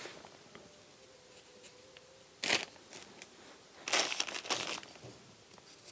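Short crinkling rustles from hands handling things at the pot: one about two and a half seconds in, then a cluster around four seconds.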